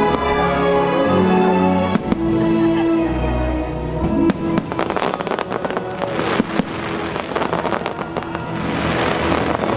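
Fireworks shells bursting and crackling over show music. A sharp bang comes about two seconds in, then a dense run of crackling bursts from about four seconds in, with the music dropping back under them.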